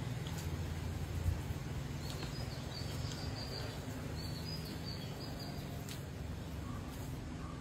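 Outdoor ambience: a steady low rumble under scattered short, high chirps of small birds, with a brief soft knock about a second in.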